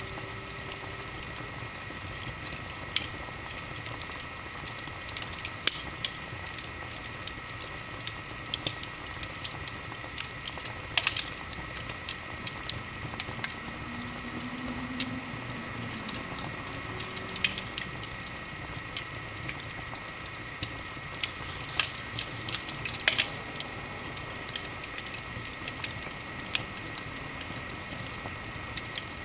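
Wood fire burning in an open fireplace, crackling with frequent irregular sharp pops over a steady hiss. A faint steady high whine sits underneath.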